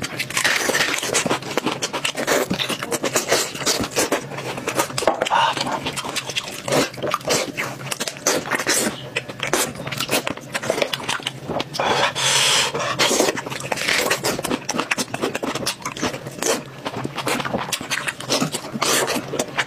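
Close-miked eating sounds: chewing and mouth smacking, a dense irregular run of wet clicks and smacks, with a louder noisy stretch about twelve seconds in.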